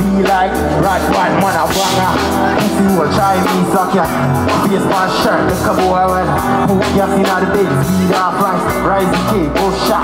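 Music with a voice singing and rapping over a steady drum beat.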